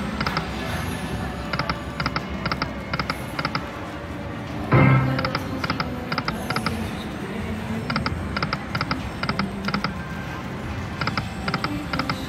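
Aristocrat Timber Wolf video slot machine running its free spins: quick groups of electronic ticks as the reels spin and stop, over the machine's own music, with a louder sound about five seconds in.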